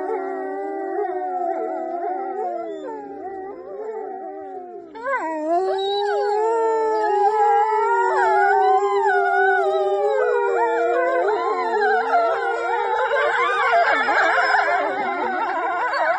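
Several canines howling together in long, overlapping, wavering notes. The chorus fades a little, then comes back louder and fuller about five seconds in.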